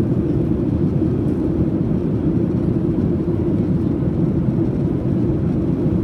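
Steady low rumble of a passenger aircraft's cabin in flight: engine and airflow noise heard from inside the cabin, with no separate events.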